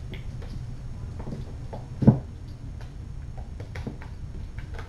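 Kittens scampering and wrestling on a hard floor: light, scattered patters and taps over a low steady hum, with one louder thump about two seconds in.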